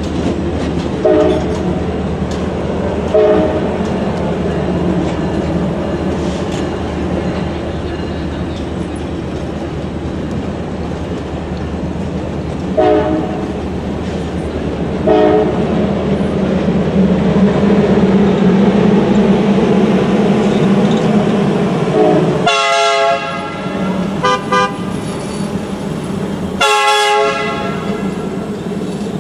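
Passenger train cars rolling steadily past over the rails, with a few short squeaks in the first half. Near the end a train horn sounds one long blast, two short ones, then another long one.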